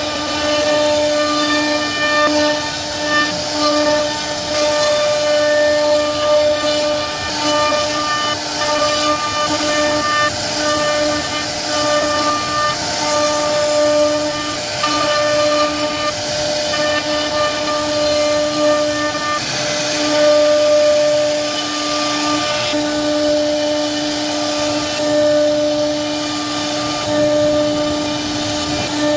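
CNC router spindle running with a steady high-pitched whine while its bit cuts into a wooden panel, with a hiss from the cutting.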